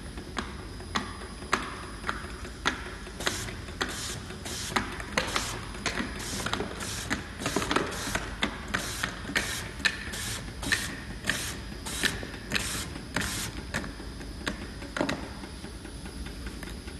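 Top labeling machine running: the label dispenser clicks about twice a second as it feeds a label onto each passing container, over a low steady hum. The clicks thin out near the end.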